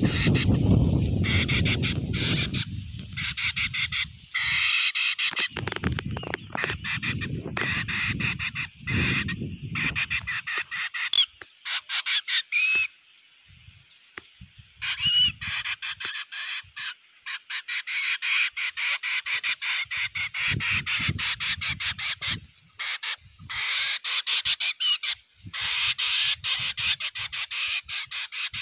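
A bird singing in long bouts of fast, chattering note strings, with a few short rising whistles in between. A low rumble runs under the song for the first ten seconds or so.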